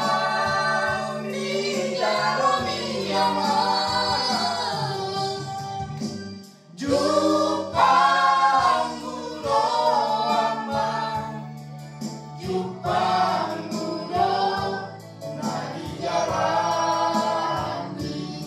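A small mixed group of men and women singing a Batak-language song together into handheld microphones, with a short pause between phrases about six and a half seconds in.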